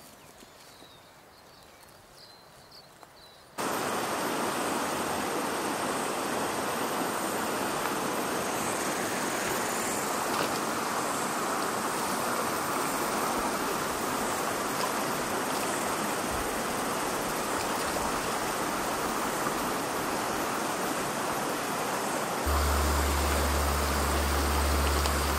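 Shallow river water rushing over stones, a steady hiss that cuts in abruptly a few seconds in after a quieter opening. A steady low hum joins near the end.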